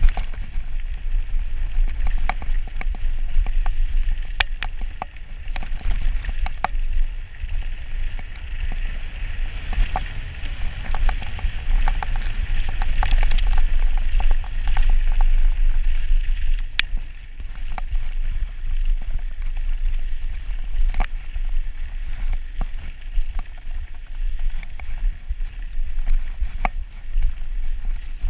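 Mountain bike descending a dirt trail at speed: wind rumble buffeting the camera microphone and the hiss of knobby tyres rolling over loose dirt, with frequent sharp clicks and rattles from the bike's chain and frame over bumps.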